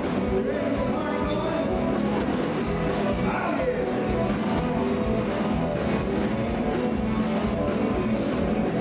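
Country-rock band music playing steadily, with a singer and guitar.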